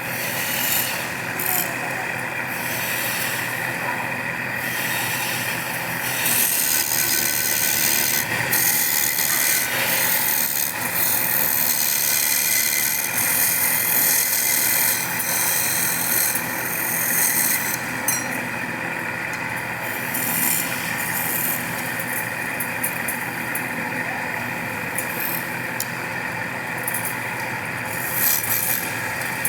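Woodworking machine running steadily while shaping wood, with stretches of loud high hissing as the cutter bites into the wood.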